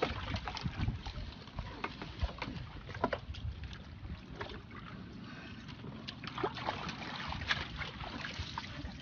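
A fishing net with fish in it being hauled in over the side of a small boat: water splashing, the mesh rustling and irregular knocks against the hull.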